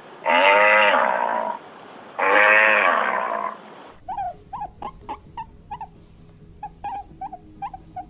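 Animal calls: two long, loud pitched cries about two seconds apart, then a different animal's run of short, high chirps repeated irregularly.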